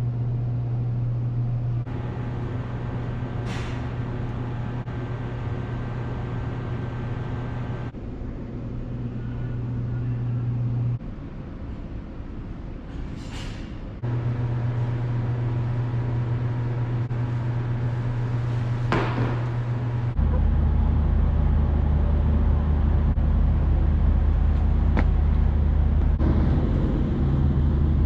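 Car driving at speed: a steady low engine and road hum, with three brief whooshes of passing traffic.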